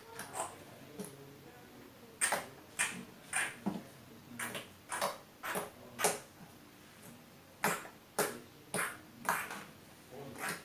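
Homemade slime being squeezed and pulled in the hands, making a run of sharp squelchy pops and clicks about every half second, in groups of three to five with short pauses between.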